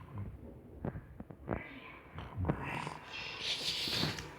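A woman snoring and breathing heavily in her sleep. Several sharp clicks come in the first three seconds.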